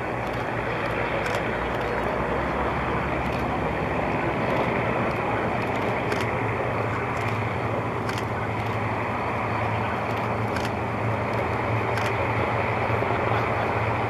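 Avro Lancaster's four Rolls-Royce Merlin V12 engines running at low taxiing power, a steady deep drone. Its low hum grows stronger about four seconds in.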